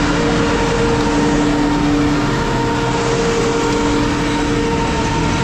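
Heavy machinery running steadily and loudly, a constant mechanical hum of several held tones over a broad rumble.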